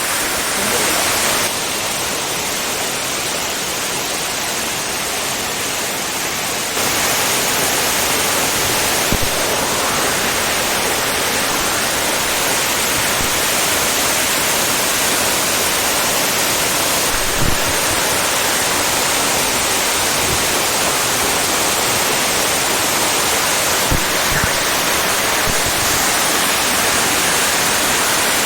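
Waterfall: a steady rush of falling water, with the level stepping up a little about seven seconds in and a couple of brief low knocks later on.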